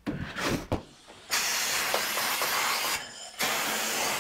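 Compressed-air blow gun on a workshop airline hissing as it blows dirt off a lawn mower, in two long blasts with a short break about three seconds in. A few light handling knocks come before the first blast.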